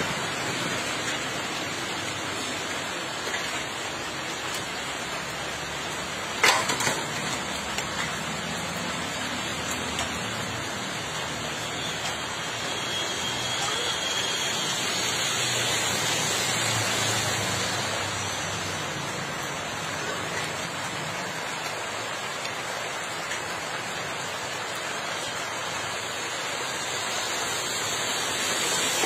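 Steady rain and rushing runoff water, with a single sharp knock about six and a half seconds in.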